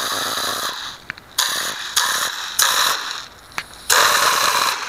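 Compressed-air plastic pop-bottle machine gun firing: about five hissing blasts of air, each half a second to a second long, the last and loudest near the end, with a few sharp clicks in the gaps.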